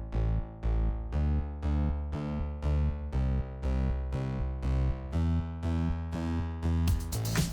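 Intro music: synthesizer keyboard chords struck about twice a second over a heavy bass. A beat with drums and percussion kicks in near the end.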